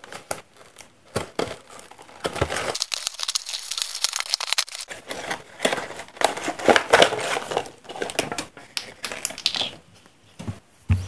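Clear plastic blister packaging with its cardboard backing being pulled open by hand, crinkling and crackling in quick irregular bursts that die down near the end.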